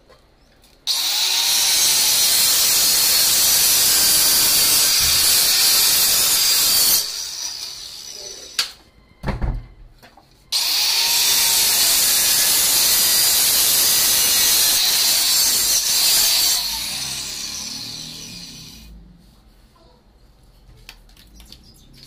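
Handheld electric tile cutter with a diamond blade cutting a stone-look wall tile in two passes of about six seconds each, a high shrill grind. There is a short knock in the pause between the passes. After the second pass the motor winds down and fades.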